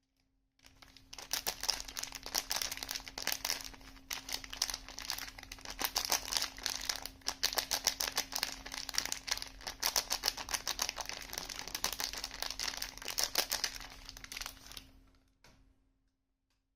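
Soap packaging crinkling as it is unwrapped: a dense run of fine crackles that starts about half a second in and stops shortly before the end.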